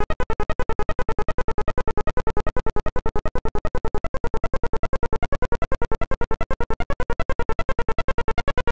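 Amiga demo soundtrack: electronic music in which a synthesizer tone is chopped into a rapid, even stutter of pulses.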